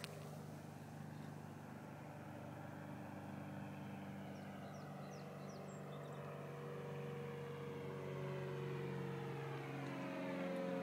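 Aircraft engine drone passing overhead, growing steadily louder as it approaches, its pitch slowly rising.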